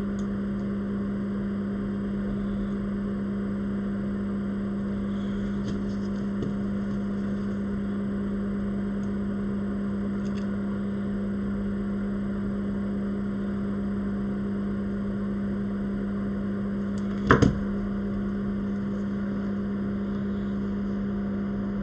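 A steady, even hum of a small motor or fan, with one sharp knock about seventeen seconds in.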